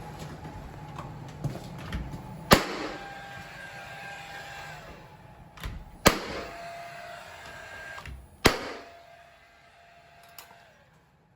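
Three sharp knocks a few seconds apart, each leaving a short ringing tone: the door jamb of a prehung French door being struck through a shim to knock it back level.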